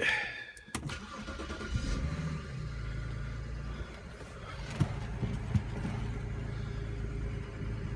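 BMW 325i E93's straight-six petrol engine starting: it cranks briefly and catches about two seconds in with a short rise in revs, then settles into a steady idle. Two light clicks are heard near the five-second mark.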